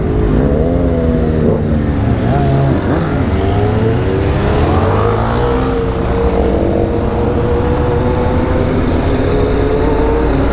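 Motorcycle engine heard from on board. Its revs rise and drop several times in the first few seconds as it accelerates through the gears, climb again midway, then hold steady at cruising speed, with wind and road rush underneath.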